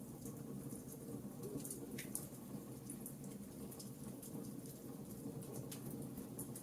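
Wood fire in a fireplace crackling: irregular small sharp pops and ticks over a steady low background.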